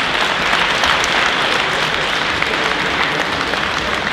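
Audience applauding, a steady patter of clapping.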